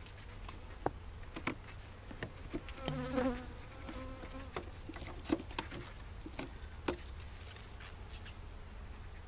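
Honeybees buzzing around an open hive, one passing close with a loud buzz about three seconds in. A dozen sharp clicks are scattered through it.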